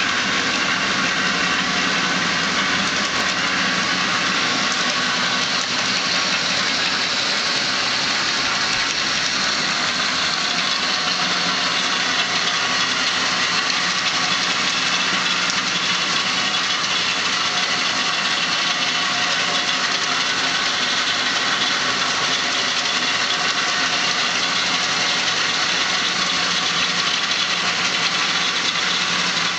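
1888 S.A. Woods 36-inch bandsaw running steadily under power, its motor, wheels and blade turning with an even mechanical hum that does not change in pitch or level.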